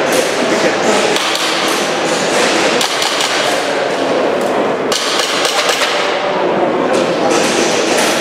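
Airsoft pistol firing in quick strings, sharp clacks and knocks of the shots and the BBs striking the targets, during a practical shooting stage.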